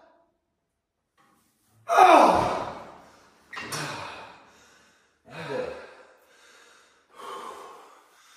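A man gasping for breath during and after a hard chest fly set. About two seconds in comes a loud forceful exhale, then heavy breaths follow roughly every two seconds, each weaker than the last.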